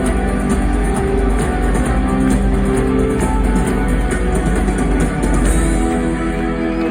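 Rock band playing loudly, with guitar and drums.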